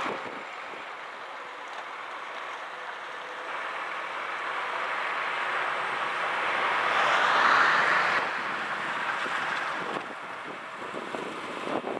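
Heavy Iveco crane truck pulling a low-loader trailer drives off. Its engine and tyre noise builds to a peak about seven to eight seconds in, then fades as it moves away.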